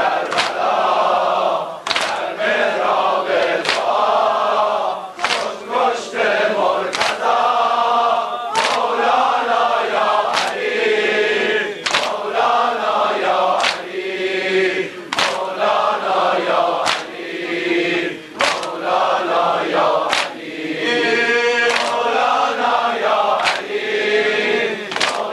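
A crowd of men chanting a Shia mourning lament together while beating their bare chests in unison (sineh-zani), a sharp slap landing about once a second under the singing.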